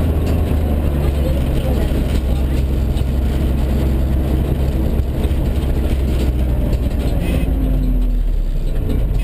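Mitsubishi Colt CZ3 rally car's engine running steadily under way, heard from inside the stripped cabin. The engine note shifts slightly about three-quarters of the way through.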